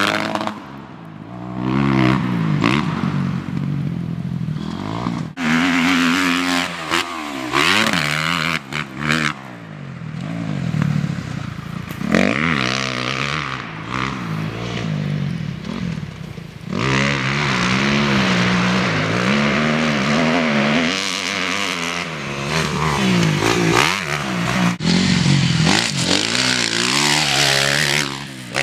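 Motocross dirt bike engines revving hard and backing off, their pitch climbing and dropping again and again as the bikes ride and jump the track. The sound breaks off abruptly a few times between passes.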